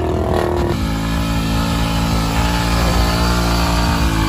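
Single-cylinder motorcycle engine held at steady high revs while the rear wheel spins in wet mud, mixed with background music.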